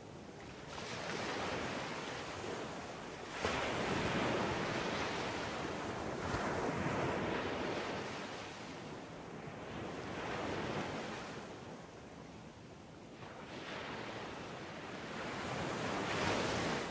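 Surf breaking on a beach, the waves washing in and fading in slow swells every few seconds, with a sharper crash about three and a half seconds in.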